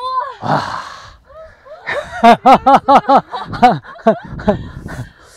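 Golfers crying out and laughing as a putt drops into the hole: a short rising cry and a breathy shout, then a quick run of laughs about two seconds in, with more laughter near the end.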